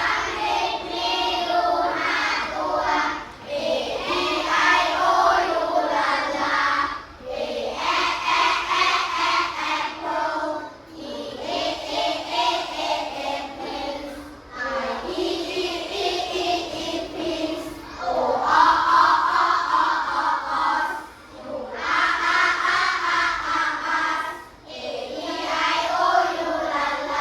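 A class of young children singing together in unison, in phrases of a few seconds each with short breaks between them.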